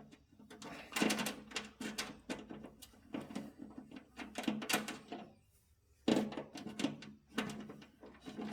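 Clicks, knocks and light rattles of small metal parts being handled while a starter solenoid is fitted into place, with a short pause a little past the middle.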